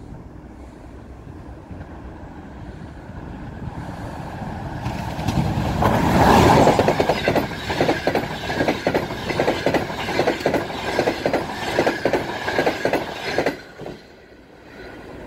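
EP20 electric locomotive hauling the Nevsky Express passenger train past. The noise swells as it approaches and is loudest as the locomotive goes by about six seconds in. Then comes a run of regular clickety-clack from the carriages' wheels over the rail joints, which cuts off suddenly near the end as the last car passes.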